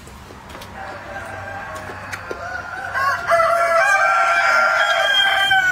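Rooster crowing: one long drawn-out crow that starts faint and turns loud about three seconds in.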